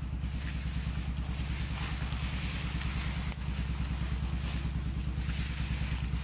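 Footsteps brushing through tall grass, with irregular rustles every half-second or so, over a steady low rumble.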